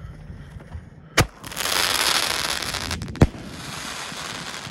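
Master 6 Plus firework going off: a sharp bang about a second in, then a loud rushing hiss as it throws a column of sparks, fading off over the next few seconds, with a second sharp bang partway through.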